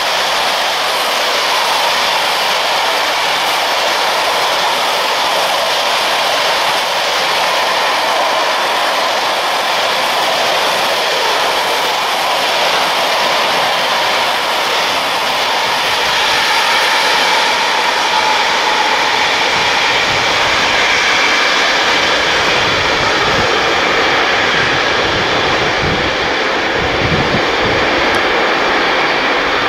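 Container freight train passing at speed: a steady rush of wagon wheels on the rails with no break. Low rumbles come in during the last several seconds.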